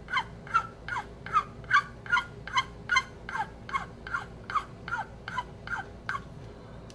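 Flat file scraping in short, even strokes across the briar shank of a Dunhill tobacco pipe, about two and a half strokes a second, each a quick falling scrape. The strokes stop about six seconds in. The filing is taking down a ridge on the shank.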